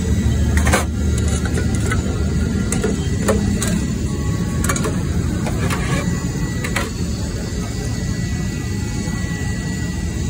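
Steady low rumble of road traffic, with a few sharp clinks of steel spoons against steel bowls and sauce pots.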